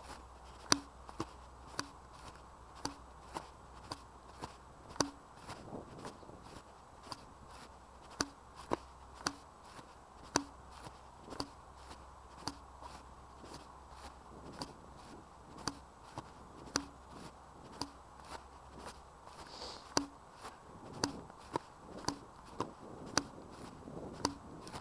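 Footsteps of a person walking at a steady pace, about two steps a second, each a sharp crunching click.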